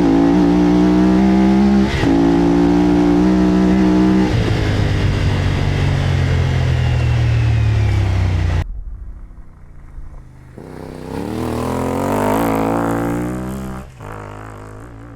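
CFMOTO 450MT parallel-twin engine through a Sharon slip-on exhaust, running at a steady high pitch for about four seconds, then at a lower pitch that slowly falls until it cuts off suddenly. It is followed by the motorcycle passing by, rising and then fading.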